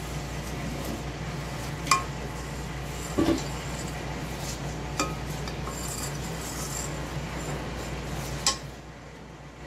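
A metal ladle clinking against a stainless-steel pot while skimming the milk-solid foam off melted butter: three sharp, ringing clinks spread through, and a duller knock a little past three seconds in. A steady low hum runs underneath and drops away near the end.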